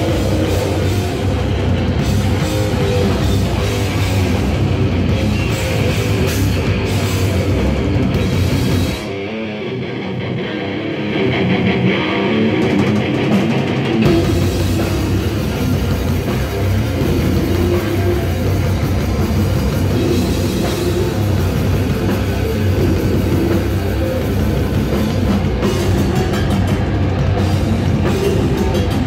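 Live grindcore/death metal band playing loud, with distorted electric guitar, electric bass and a drum kit. About nine seconds in, the sound thins for about five seconds, losing its deepest low end and cymbal hiss, then the full band comes back in.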